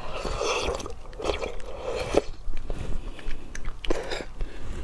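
Close-up mouth sounds of eating a spoonful of thick lotus root starch with nuts: soft sucking and sipping from the spoon, then chewing with small wet clicks and lip smacks.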